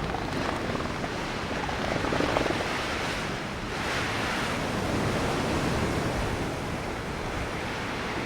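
Ocean surf: waves breaking and washing on a shore, swelling about two seconds in and again around four seconds in.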